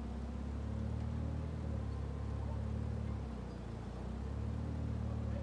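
Forklift engine running steadily at low speed, a low hum that dips slightly about halfway through and then picks up again.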